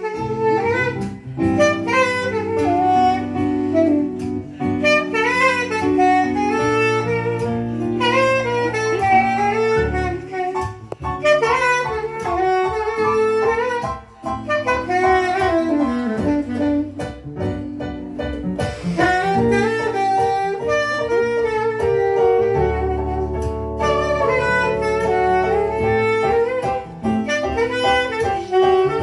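Live jazz: a saxophone plays a flowing melodic line over sustained electric keyboard chords and low bass notes.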